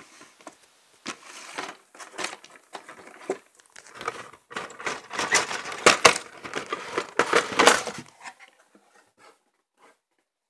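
Cardboard Gunpla model-kit box being handled and turned over by hand: a run of rustling, scraping and light knocks, loudest in the middle and dying away about eight seconds in.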